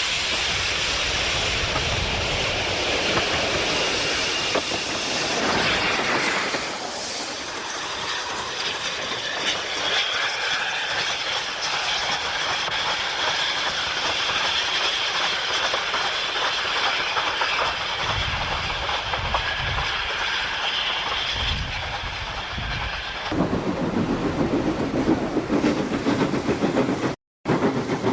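GER N7 0-6-2 tank steam locomotive running, a steady hiss of steam with wheels clattering over the rail joints. About 23 seconds in the sound changes abruptly to a louder, choppier run, broken by a brief moment of silence near the end.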